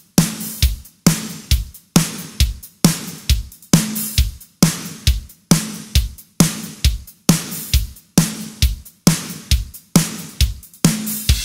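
Programmed rock drum kit playing a steady 4/4 beat at 135 BPM: kick drum and a ringing snare backbeat repeating bar after bar. A cymbal wash comes in at the very end.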